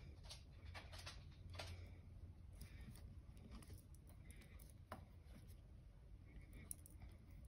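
Faint clicks and rubbing of fingers working a metal cover button and its back in a plastic cover-button mold, trying to press the back into place. A few scattered small clicks over a low room hum.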